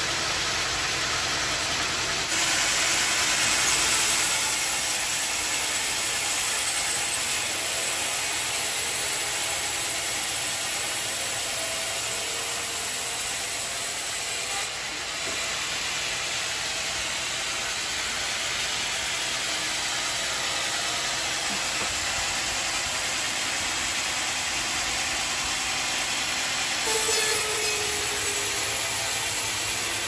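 Band sawmill blade running through a large teak log, a steady hissing noise. Its texture shifts abruptly a few times.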